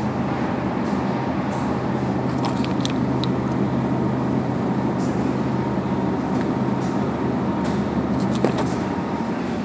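Steady low machine hum of supermarket refrigerated produce cases and air handling, with a few light crinkles of a plastic sachet being handled.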